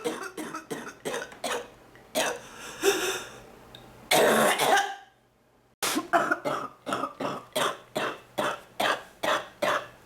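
A woman's deep, wet cough in repeated fits: a run of short coughs, a longer cough about four seconds in, then after a brief gap a fast, even train of short coughs, about three a second.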